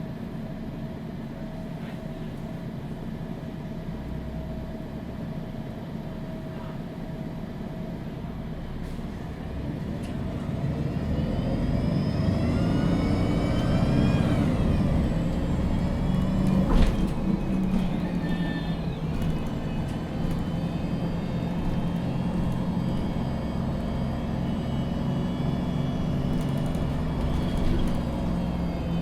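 MAN NG 313 CNG articulated city bus's natural-gas engine, heard from inside the bus: running steadily and quietly, then from about ten seconds in it grows louder as the bus accelerates, its pitch rising until it drops at a gear change. A single sharp knock a few seconds later, then the engine runs on steadily.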